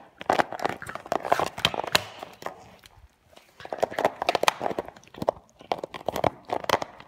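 A dog chewing and biting a plastic Coca-Cola bottle: irregular crinkling crunches of the plastic, with a brief pause about three seconds in.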